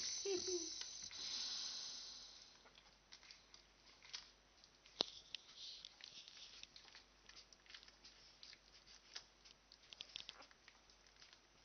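Newborn boxer puppies nursing, with faint scattered suckling clicks and smacks. It opens with a breathy sigh and a brief squeak.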